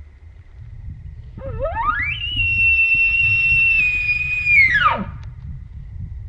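An elk bugle: one long call that sweeps up from a low note to a high whistle, holds for about two and a half seconds, then drops off steeply.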